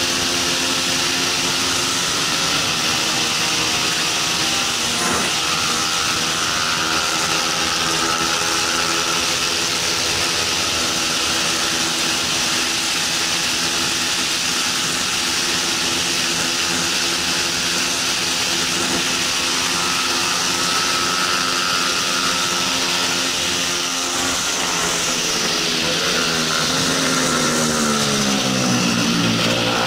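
Bajaj Pulsar 200 NS single-cylinder engine held at high revs at full throttle, with a strong wind rush over the camera. About 24 seconds in the revs fall steadily as the bike slows for a corner, then start climbing again near the end as it accelerates out.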